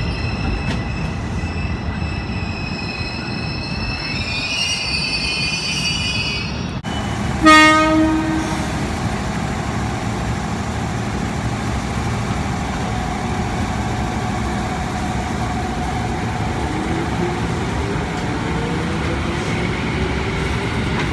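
Ex-JR 205 series electric commuter train moving off, its motors giving a steady whine that rises in pitch before cutting off suddenly. About seven and a half seconds in, a train horn sounds one short blast, the loudest sound here. After that come the steady rumble of the cars running past on the track and a slowly rising whine near the end.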